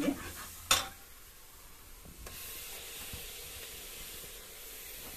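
Wet ground masala paste going into a pan of hot spiced oil: a single knock under a second in, as the mixer jar or spoon meets the pan, then a steady sizzling hiss from a little past two seconds in.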